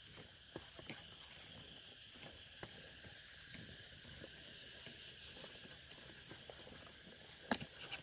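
Insects keep up a steady, high-pitched drone, with light rustling and crackling of something moving through leaves and one sharp snap near the end.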